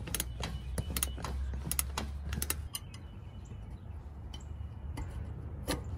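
Light clicks and clatter of metal brackets and fasteners being fitted by hand on a car's front-end structure: a quick run of taps and clicks in the first few seconds, then a few scattered single clicks.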